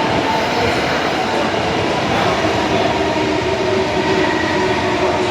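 Osaka Metro Tanimachi Line subway train running, a loud steady rumble of wheels and running gear with a faint whine of steady tones through it.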